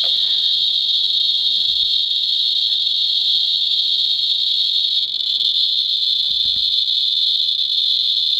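Radiation Alert Ranger Geiger counter clicking so fast over uranium-glazed Fiestaware that the counts run together into a steady, high chirping buzz. It is registering the radioactivity of the uranium in the glaze.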